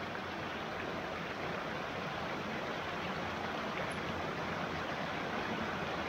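Mountain stream rushing steadily over and between boulders in small cascades.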